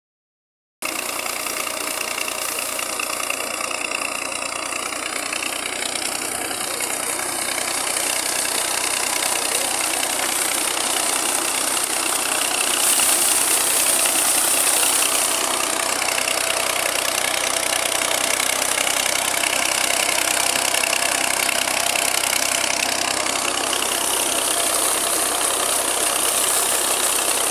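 A tubewell's outlet pipe gushing a heavy, continuous stream of water that splashes into a muddy pool, over a steady machine hum from the pump.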